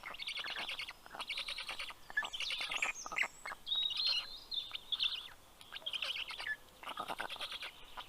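Birds calling: repeated short bursts of rapid chirping trills, with a few gliding whistled notes in the middle.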